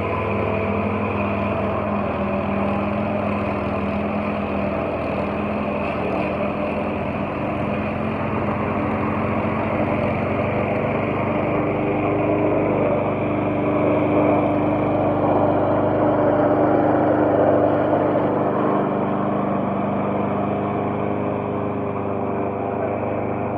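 Gasoline walk-behind lawn mower engine running steadily. It grows louder for several seconds around the middle as the mower is pushed close by.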